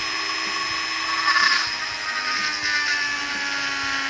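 Small electric drill motor running under load, a steady whine that drifts slowly lower in pitch and swells about a second and a half in.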